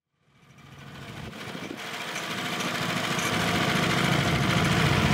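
Engines of two homemade mini tractors, one with a Moskvich car engine and one with a 15 hp Lifan engine, running as the tractors drive, rising out of silence and growing steadily louder.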